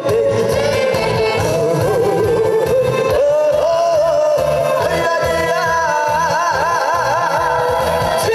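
Male trot singer singing live into a microphone over a backing track with a steady bass beat, holding long notes with wide vibrato in the second half.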